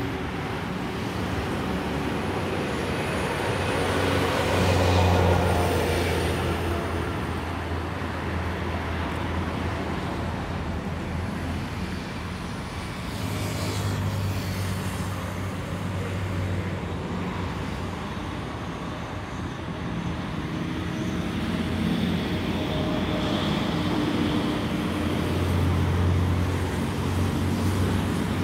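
Road traffic passing nearby: a steady rumble in which vehicles swell and fade about three times, the first with a falling pitch as it goes by.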